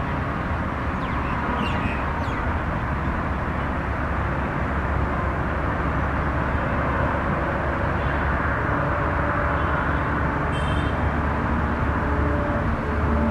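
ALCO WDM2 diesel-electric locomotive running as it hauls a passenger train away along the track: a steady low engine rumble with wheel and rail noise, growing slightly louder in the second half.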